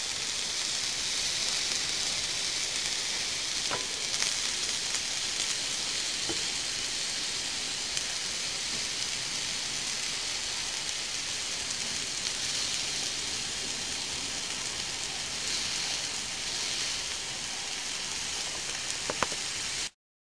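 Steak sizzling on the hot top plate of a PlayStation 3 converted into a grill: a steady hiss with a few small pops, cutting off suddenly near the end.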